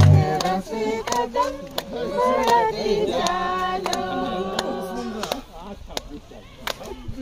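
Group of women singing a traditional welcome song together, with sharp strokes of a mandar hand drum. The singing grows quieter after about five seconds.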